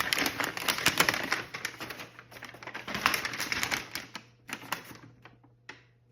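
Paper and packaging being handled, a dense crinkling and rustling made of many small crackles that thins out and fades over the last two seconds.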